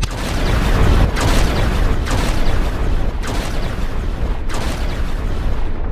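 Thunder-and-lightning sound effect: a loud rumble struck by sharp cracks about once a second.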